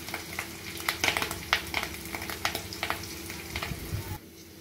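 Tempering in hot coconut oil in a small wok: curry leaves, dried red chillies and sliced shallots sizzling, with many sharp crackles and pops as the fresh curry leaves hit the oil. The crackling drops away abruptly about four seconds in.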